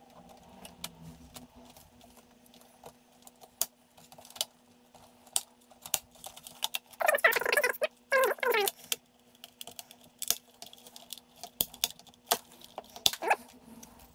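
Amstrad CPC464 keyboard parts, a steel plate and a plastic key frame, being handled and clipped together: scattered light clicks and taps, with two louder scraping sounds about seven and eight seconds in, as the plastic clips are pushed into place.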